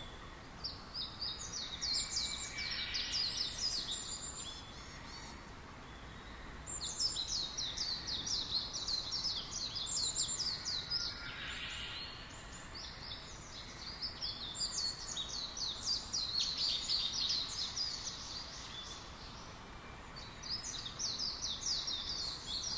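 Songbirds chirping in long runs of quick, high notes, in four phrases of a few seconds each with short pauses between, over a steady faint hiss.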